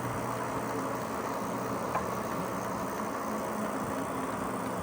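Steady travel noise: an even rumble and hiss with a low steady hum, like a moving vehicle. A faint tick sounds about two seconds in.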